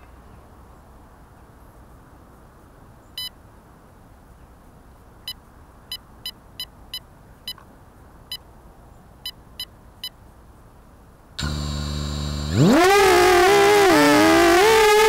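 Short electronic beeps from a Vortex FPV quadcopter, one and then a quick string of about nine, then the motors arm with a low hum about eleven seconds in. About a second later its four brushless motors spin up with a loud rising whine as it lifts off, the pitch wavering with the throttle.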